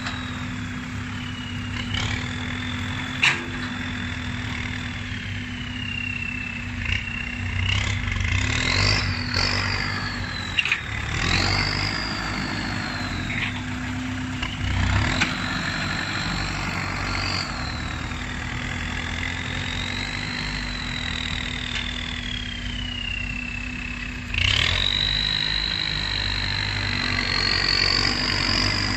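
Turbocharged Kubota tractor diesel engine running, with a high turbo whistle that rises and falls slowly over several seconds and a few sharp clunks. About 24 seconds in the engine gets louder and the whistle climbs higher.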